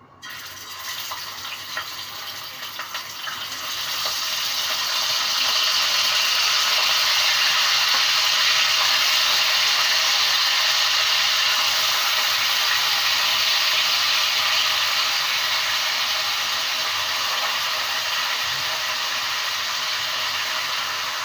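Yoghurt-marinated chicken pieces sizzling in hot oil in a kadai as they are added for shallow frying: a few crackles at first, then, about four seconds in, a loud, steady sizzle.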